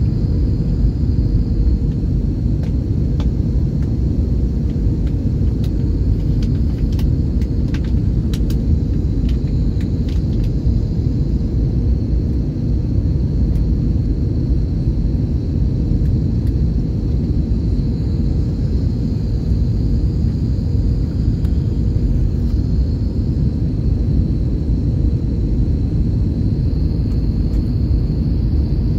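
Steady low rumble inside the cabin of an Airbus A321 airliner on approach: engine and airflow noise, with a faint steady hum and no change in level.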